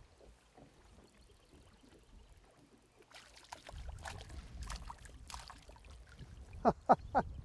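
A hooked bluegill splashing at the water's surface as it is drawn up beside a fishing boat, starting about three seconds in. Three loud sharp knocks come near the end.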